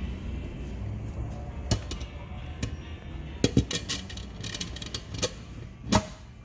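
Sharp metallic clicks and knocks of gearbox parts and tools being handled, about six of them with the loudest near the end, over a steady low hum.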